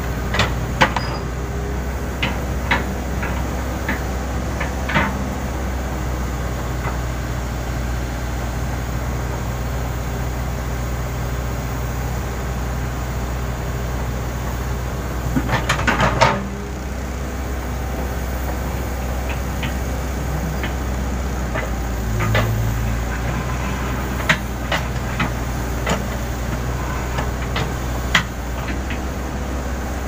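Case N Series backhoe loader's diesel engine running steadily under load while the backhoe digs, with scattered clanks and knocks from the bucket and stones. A quick cluster of clanks and rattles comes about halfway through.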